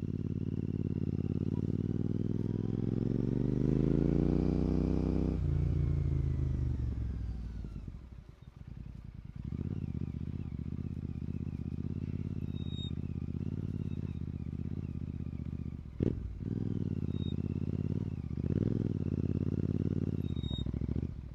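Royal Enfield Continental GT 650 parallel-twin engine through a Red Rooster aftermarket exhaust. The revs climb under acceleration for about five seconds, cut off sharply, and fall away as the bike slows. The engine then runs steadily under light throttle, with a short sharp blip and another brief rise in the last few seconds.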